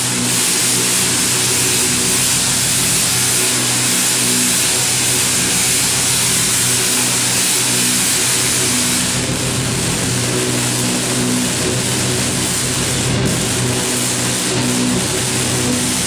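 Powerful Tesla coil discharging: a loud, continuous buzzing crackle of electric arcs. Under it, a few low steady tones switch on and off like the notes of a tune.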